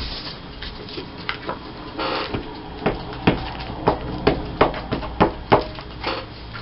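Paper craft materials being handled on a table: a brief rustle, then a run of about eight sharp taps, two or three a second.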